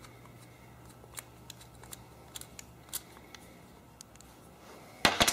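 Small clicks and scrapes of hands and a screwdriver working the brass main nozzle out of a Briggs & Stratton Flo-Jet carburetor. A few seconds of faint scattered ticks, then a quick cluster of sharp, louder clicks near the end.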